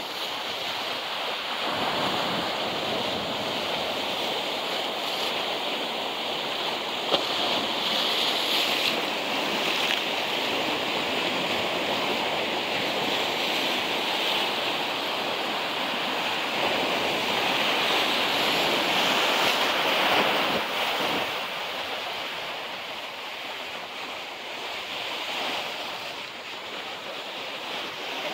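Sea surf washing over and around the rocks of a rocky shoreline: a steady rush that swells and eases with the waves, loudest about two-thirds of the way through.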